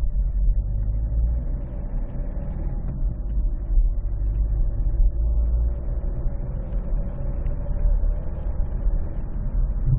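Citroën C4 1.6 HDi four-cylinder turbodiesel engine running: a steady low rumble with a faint steady tone above it. The owner reports a clicking from this engine under acceleration between about 1700 and 3200 rpm, whatever the engine temperature.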